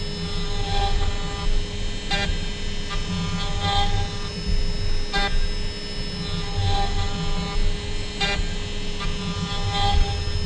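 CNC router running while its spindle and bit cut into stacked MDF: a steady whine over a rough cutting rumble, with a brief sharp sound and short whirring tones from the axis motors recurring about every three seconds as the machine works back-and-forth passes.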